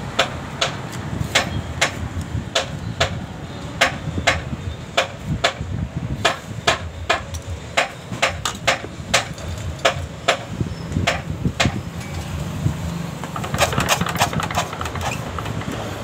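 Repeated sharp metallic taps, about two to three a second and uneven in spacing, growing busier near the end.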